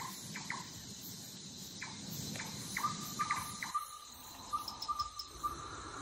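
Night-time wildlife ambience of insects, with short chirping calls scattered through the first half. From about three seconds in there is a fast, even string of pulsed calls at one pitch.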